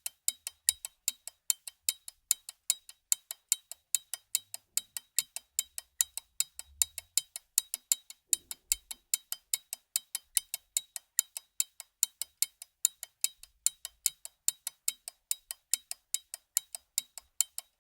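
Mechanical pocket watch ticking steadily and rapidly, about five crisp ticks a second.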